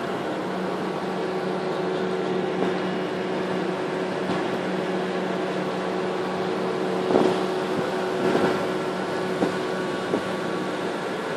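Small harbour boat's engine running steadily under way, a constant low drone with a hum in it. A few brief knocks in the second half.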